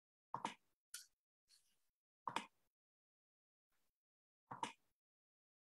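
Near silence broken by four faint, short computer mouse clicks, some heard as quick double clicks, while a screen share is being started.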